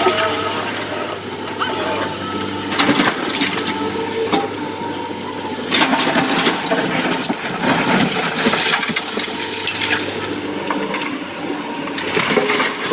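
Excavator diesel engine running steadily while loads of rock crash and clatter into a truck body several times.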